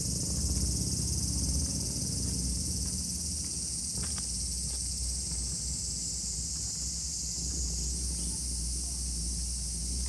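Steady, high-pitched insect chorus in summer vegetation, with a low rumble underneath.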